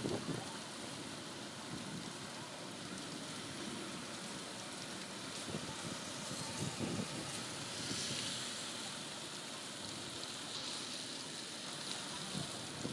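Heavy rain pouring onto a road and puddled concrete, a steady hiss that swells a couple of times.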